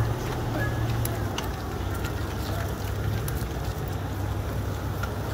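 Outdoor ambience of a walking street procession: a steady low rumble with scattered faint clicks and ticks.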